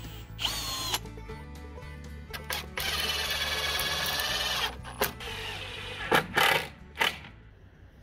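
Cordless drill-driver driving screws into wood: a short whirr about half a second in, a steady run of about two seconds starting near three seconds, then a few short bursts. Background music plays underneath.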